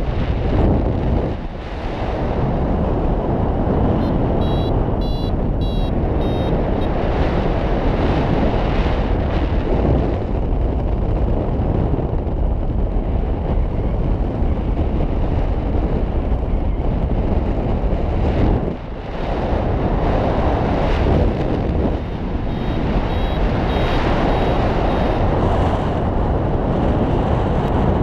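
Wind rushing steadily over the microphone of a paraglider in flight, easing for a moment twice. A variometer beeps in quick repeated high tones about 4 to 6 seconds in and again from about 22 to 25 seconds, signalling lift.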